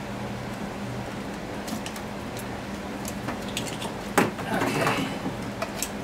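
Plastic wiring-harness connectors on an SN95 Mustang clicking and rattling as they are unclipped and pulled apart by hand. There is a sharp click about four seconds in, followed by about a second of rattling and rustling of the harness, over a steady low hum.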